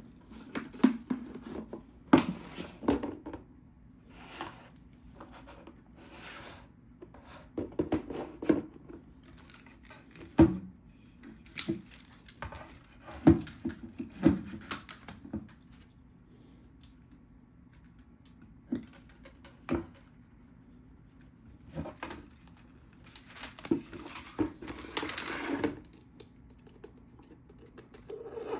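Hands handling a clear hard-plastic storage box and its lid: scattered clicks, knocks and crinkly scraping of plastic in short clusters, with a quiet spell a little past halfway.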